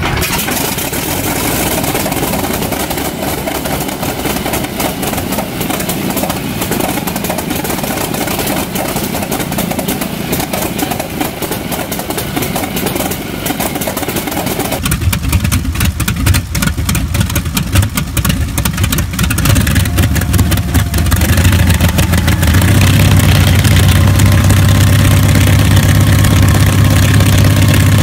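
Wright R-1820 Cyclone 9 nine-cylinder radial engine running on a test stand, turning its propeller. It sounds rough and uneven at first; about halfway through it becomes a deeper, stronger rumble, which grows louder again later and then runs steadily.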